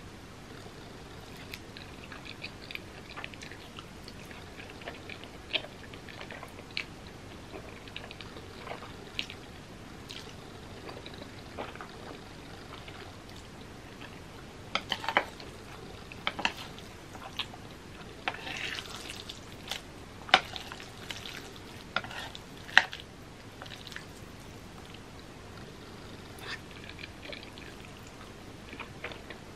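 Close-miked wet eating sounds of saucy black bean noodles: chewing and slurping with scattered sharp mouth clicks, busiest in the middle and with a longer slurp just past halfway.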